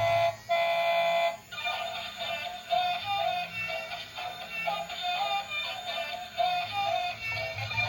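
Electronic music: a simple synthesized melody of short, stepping notes, with two brief breaks in the first second and a half.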